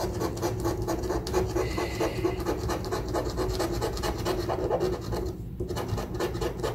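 A coin scratching the latex coating off a scratch-off lottery ticket in rapid back-and-forth strokes, with a brief pause about five and a half seconds in.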